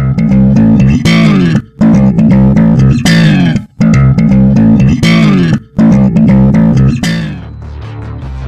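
Loud intro music: a repeating riff in phrases of about two seconds with short breaks between them, giving way to a quieter low held tone near the end.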